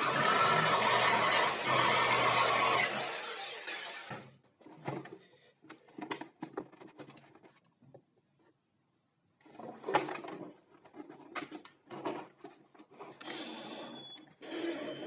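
Homemade workshop tool driven by a salvaged vacuum cleaner motor running steadily, then switched off about three seconds in and winding down over a second or so. After it come scattered short knocks and clicks of parts and tools being handled.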